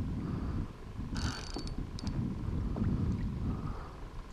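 Wind buffeting the microphone in a low rumble, with a short splash of water and a few clicks about a second in as a kayak paddle blade is jabbed down into the shallow water.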